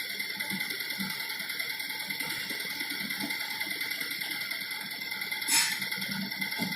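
Steady background hiss with faint scattered low rustles, and one short sharp knock or click a little over five seconds in.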